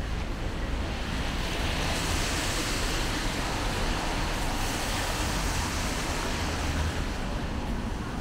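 Steady street noise: a low rumble with a hiss that swells about two seconds in and eases off near the end.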